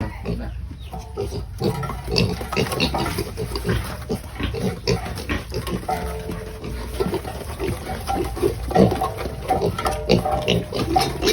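A group of pigs grunting and squealing noisily at feeding time, a dense run of short overlapping calls with a few longer, higher squeals in the middle.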